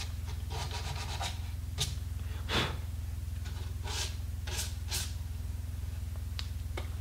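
Hands rubbing and brushing over a wooden rifle stock around the fitted brass trigger guard, in a few short, irregular strokes, over a steady low hum.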